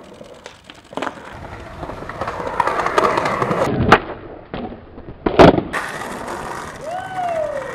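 Skateboard wheels rolling on concrete with a steady, building rumble. About four seconds in comes a sharp pop as the tail snaps for a trick, and about a second and a half later a loud clack as the board lands, with rolling after it.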